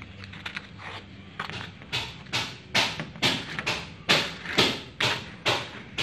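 A steady run of sharp knocks, about two and a half a second, starting about a second and a half in.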